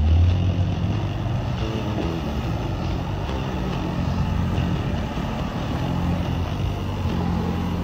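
Rock-crawling Jeep's engine running steadily at low speed as the rig climbs a boulder ledge, a low rumble that is a little louder right at the start.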